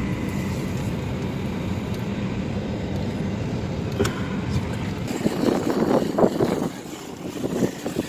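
Car cabin noise: the engine and tyres rumble steadily as the car rolls slowly across a parking lot, with a single click about four seconds in. In the last three seconds come irregular rustling bumps as the phone is handled.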